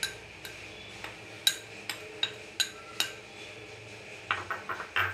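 Steel spoon clinking against glass bowls while scooping flour: sharp single clinks every half second or so, then a quick run of taps about four seconds in.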